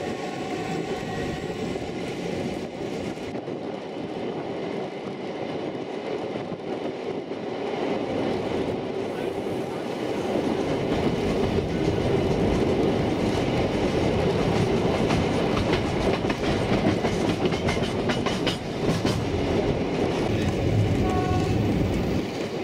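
785 mm narrow-gauge diesel train running along the line: a steady rumble and rattle of the wheels on the rails, with the locomotive's engine. It grows louder about ten seconds in.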